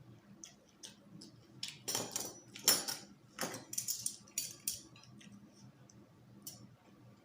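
Eating by hand from a plate: a string of short clicks and light clatters, thickest in the middle.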